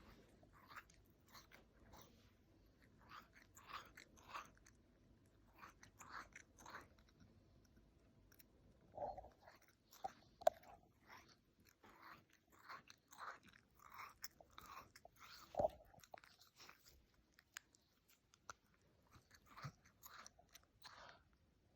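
A cat chewing close to the microphone: soft, irregular smacking and crunching bites, with two louder ones around the middle.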